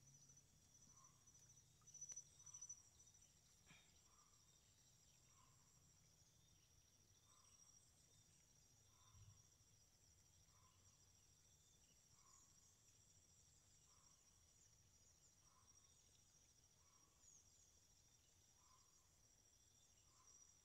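Near silence with faint insects in the vegetation: a steady high, thin trill, pulsing for the first few seconds, and a soft lower chirp repeating about once a second.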